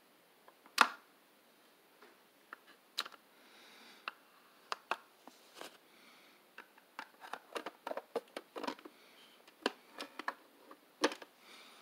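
Plastic toy dump truck parts clicking and knocking as they are handled and fitted together. One sharp click comes about a second in, then a quick, irregular run of clicks in the second half.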